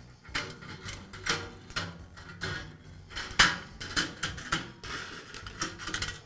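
Coiled heater-element wire rattling and clinking against the sheet-metal frame and insulators of a vent-fan-heater as it is unhooked and pulled out: a run of irregular light clicks, with a sharper knock about three and a half seconds in.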